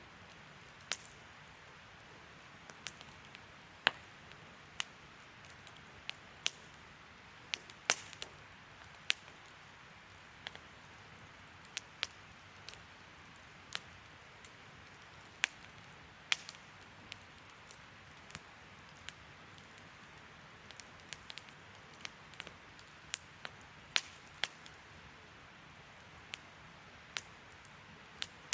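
Wood campfire crackling: irregular sharp pops and snaps, about one or two a second, over a soft steady hiss of burning.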